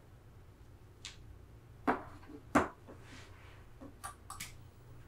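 Knocks and clicks of a person shifting in bed and handling things on a bedside table, two sharp knocks about 2 and 2.6 seconds in the loudest, a few lighter clicks near the end, over a steady low hum.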